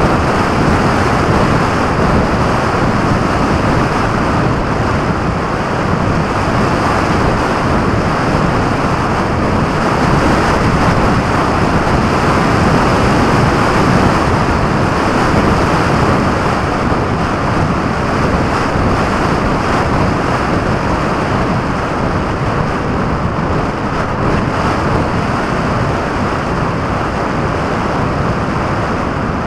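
Steady rush of wind noise from air streaming past a camera mounted under the wing of a radio-controlled model aircraft in flight.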